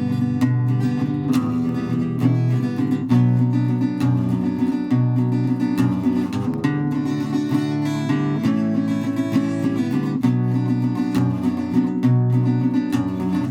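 Strummed acoustic guitar playing a chord progression, with regular strums and a chord change every second or two.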